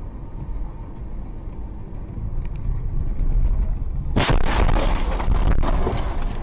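Steady road and engine rumble inside a car's cabin. About four seconds in comes a sudden loud crash as the car hits an ambulance van, with impact and crunching that goes on for about two seconds; the windscreen cracks in the collision.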